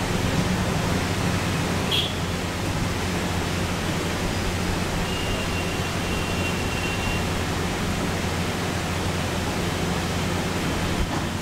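Steady hiss with a low hum underneath, and a single brief click about two seconds in.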